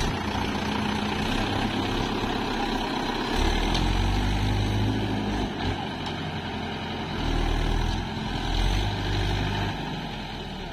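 Mahindra Yuvo 575 DI tractor's four-cylinder diesel engine labouring as the tractor climbs a steep dirt bank, with the engine note surging louder twice, about three and a half seconds in and again about seven seconds in.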